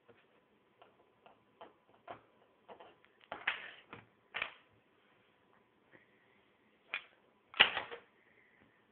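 Plastic Lego pieces clicking and clattering as they are handled and pressed together, a run of irregular clicks with a louder clatter near the end.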